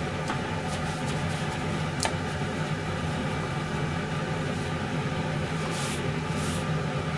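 A steady mechanical hum, with a paper towel rustling and rubbing across a wooden cutting board as it is wiped down. There is a single click about two seconds in and two short swishes of the towel near the end.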